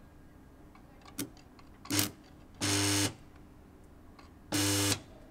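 Stick-welding arc struck against the steel hull in short spurts: a click, a brief crackle, then two buzzing arcs of about half a second each with a steady mains hum, each cutting off as the electrode fails to hold the arc.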